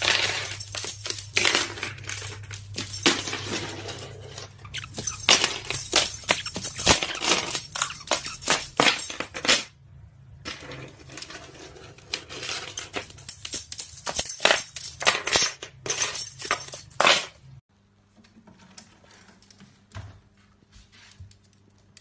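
Rapid, irregular clicking and clinking as a small parrot scrambles and plays on a hard wooden floor, with a short pause about ten seconds in. It gives way to a faint hum near the end.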